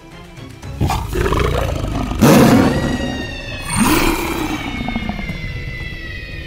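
Tiger roar sound effects: loud roars break in about a second in, again about two seconds in and near four seconds, over background music, with a long high tone that slowly falls in pitch from about two seconds in.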